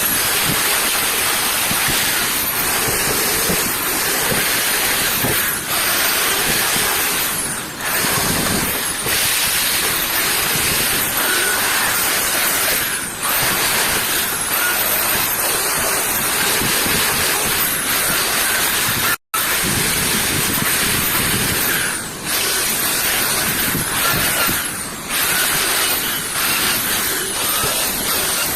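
Loud, steady hissing spray that breaks off briefly every few seconds.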